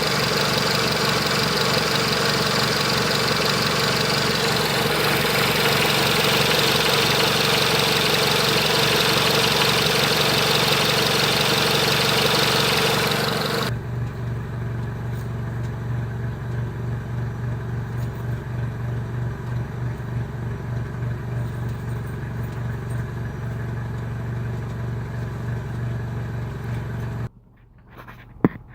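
Renault Megane II 1.6 16v petrol engine running, loud and even for the first half. About halfway through it drops to a quieter, uneven pulsing idle: the misfire that shakes the car, though the diagnostic tool finds no fault. The sound cuts off suddenly near the end, followed by a single click.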